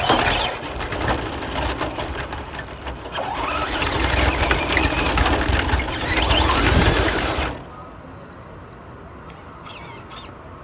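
Radio-controlled car's motor whining in two spells, its pitch rising as it speeds up. The sound cuts off suddenly about three-quarters of the way in, leaving only faint background.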